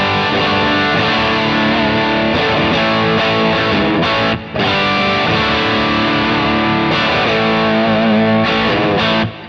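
Distorted electric guitar played on a Strat-style guitar through the Kemper amp profile 'LDW 5', with no added EQ: chords and riffs, with a brief break about four and a half seconds in.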